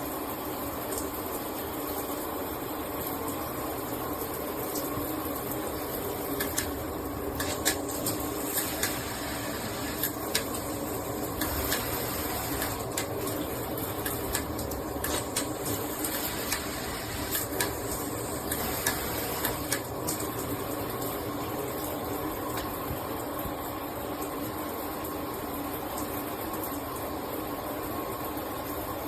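Steady rush of running water, with scattered short clicks and taps between about six and twenty seconds in.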